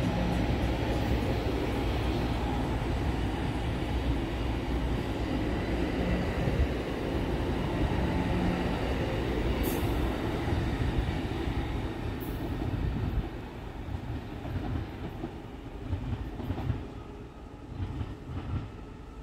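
Amtrak Pacific Surfliner bilevel passenger cars rolling past on the rails with a steady rumble and wheel clatter. About two-thirds of the way through, the sound starts to fade as the train pulls away.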